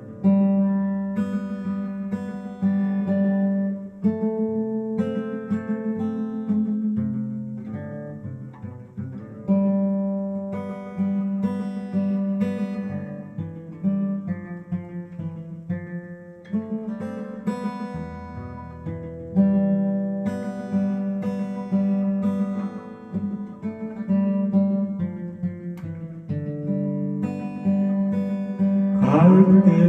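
Acoustic guitar playing a slow instrumental introduction to a song, picked and strummed chords over a steady repeating bass note.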